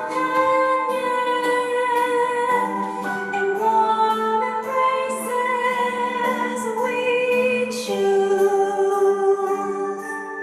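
Background music: a slow song with sustained singing over keyboard chords.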